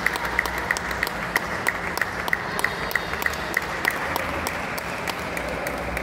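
Table tennis hall ambience: an even background noise with a steady run of sharp clicks, about three a second, that fades out a little past halfway, leaving a few scattered clicks.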